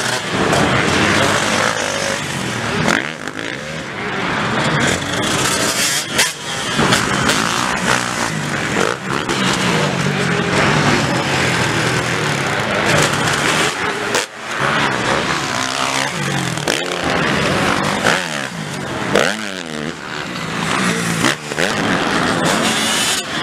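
Motocross bike engines revving hard as the bikes ride past one after another, each pass rising and falling in pitch as the riders open the throttle and shift.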